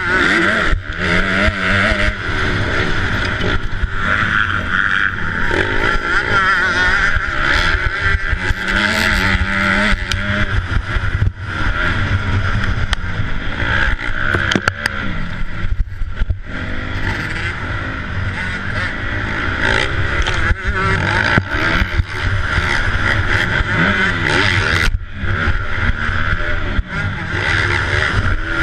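250cc four-stroke motocross bike engine revving hard, its pitch climbing and falling through the gears, with wind rushing over the helmet-mounted camera. The throttle is chopped briefly a few times.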